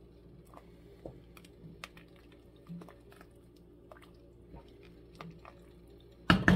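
Pot of vegetable soup boiling on the stove, with scattered soft pops and bubbling ticks. A couple of loud knocks come near the end.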